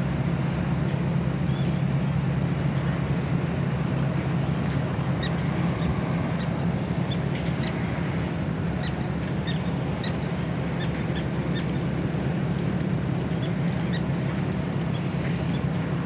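Steady low hum of harbour background noise, with faint short high chirps scattered through the middle and end.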